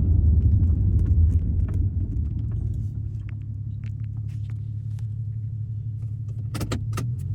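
Car driving: a low road rumble that eases after two or three seconds into a steadier low hum, with a few sharp clicks near the end.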